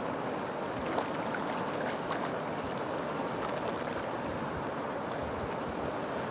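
River water flowing steadily, a constant rushing with a few small splashes and droplets a second or two in.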